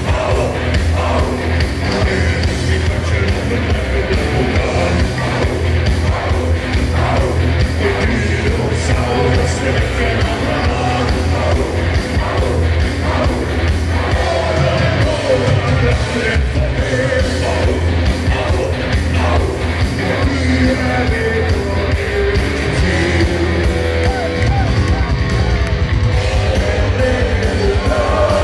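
Live folk metal band playing at full volume: distorted electric guitars, bass guitar, drums and sung vocals, heard from the audience in front of the stage.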